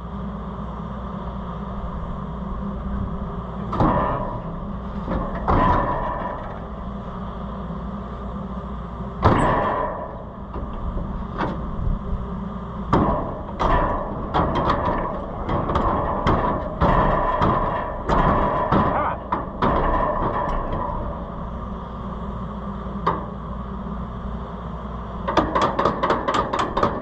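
Metal clanks, knocks and rattles from fitting the gathering chain on an Oliver 7300 combine's corn head, busiest in the middle, with a quick run of about eight clicks near the end, over a steady low hum.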